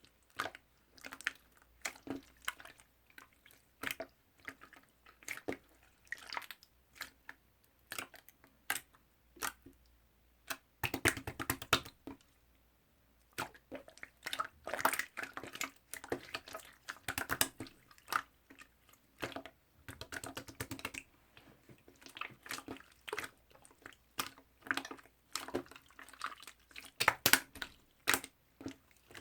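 White slime being squeezed, poked and stretched by hand, giving irregular sticky clicks and pops with a few denser crackling stretches of squishing.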